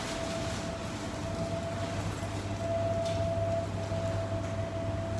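Steady hum of laundromat machinery carrying one constant tone, with faint rustling of clothes being loaded into a coin-operated drum dryer.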